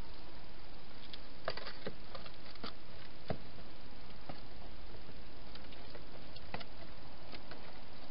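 Wild hedgehogs moving about on paving and in a plastic feeding box: scattered faint clicks and scuffs at irregular moments, over a steady hiss.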